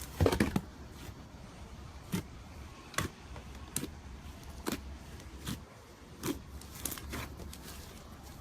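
Slime being handled, giving a string of sharp clicking pops about once a second, with the loudest cluster near the start.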